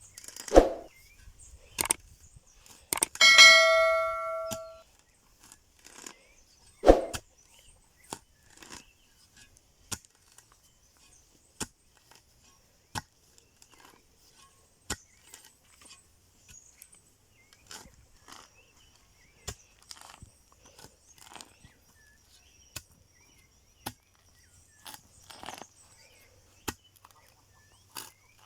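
Digging and brick work with a small metal shovel: a heavy thud, then a ringing metallic clang about three seconds in that dies away over a second or so, another heavy thud, and then light knocks about once a second.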